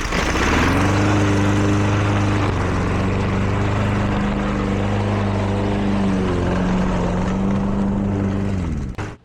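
Lawn mower engine running steadily and shredding cereal, rising in pitch in the first half-second, with slight sags in speed partway through. It cuts off abruptly near the end.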